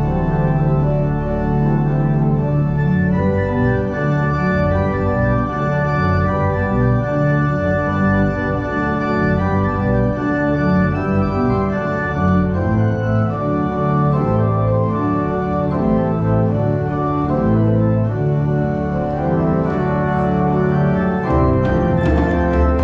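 Church pipe organ playing sustained chords that shift from one to the next. Near the end, sharp hand drum strikes come in over the organ.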